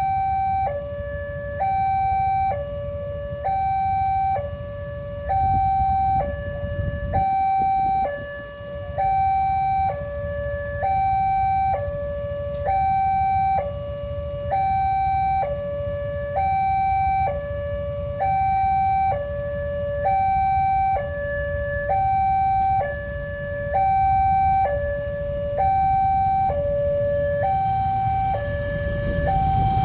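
Railway level-crossing warning siren at the barrier gate, sounding a steady two-tone alarm that alternates a higher and a lower tone about once a second each, the signal that a train is coming and the gates are down. Underneath runs a low rumble that grows louder near the end.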